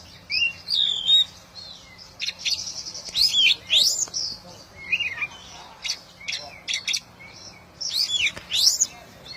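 Oriental magpie-robin (kacer) singing: loud, varied whistled notes that sweep up and down, mixed with sharp chips and a fast buzzy rattle, in short phrases with brief gaps.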